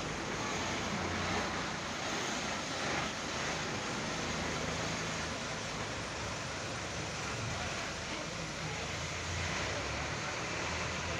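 Large tour bus driving slowly past at close range and pulling away, its diesel engine running steadily under the noise of the passing coach.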